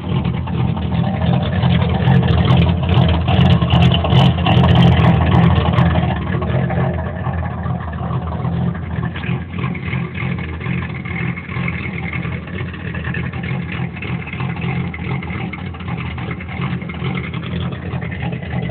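Turbocharged V6 Ford Mustang running through a 3-inch exhaust, steady near idle. It gets louder for a few seconds about two seconds in, then settles back.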